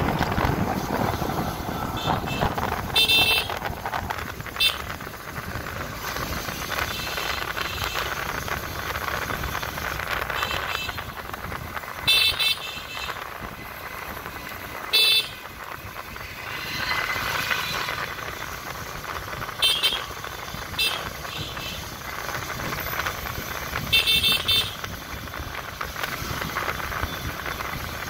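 Vehicle horns tooting in short blasts, about seven times, over the steady rush of wind and traffic noise on a moving motorbike.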